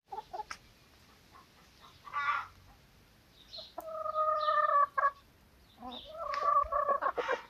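Chickens calling: a few short clucks, then two drawn-out, steady-pitched calls about a second long each, the first about four seconds in and the second near the end.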